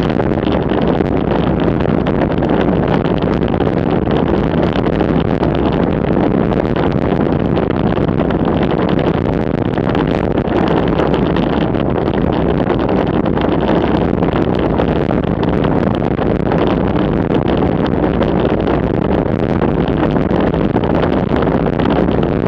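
Steady rush of wind over the microphone of a camera on a road bicycle descending at about 35–40 km/h.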